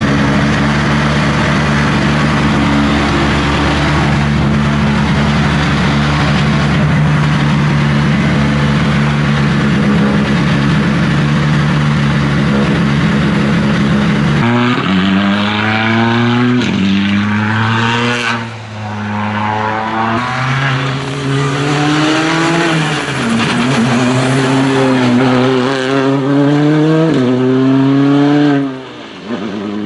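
Hyundai i20 rally car's engine idling steadily, then, from about halfway, accelerating hard: the engine note rises and drops again with each quick upshift, several times in a row.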